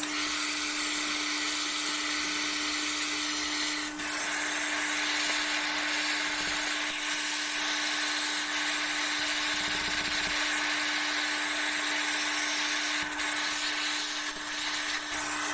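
A small electric motor running steadily: a constant hum over a hiss, with the hiss growing a little brighter about four seconds in.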